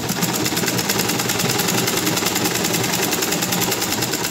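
Old black metal sewing machine running steadily while stitching fabric: a fast, even clatter of the needle mechanism.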